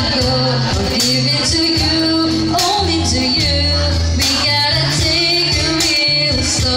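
Live band playing a song with singing, a bass line and steady percussion.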